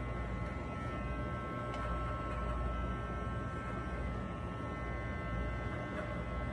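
Corded electric hair clipper buzzing steadily as it trims hair at the side of the head above the ear.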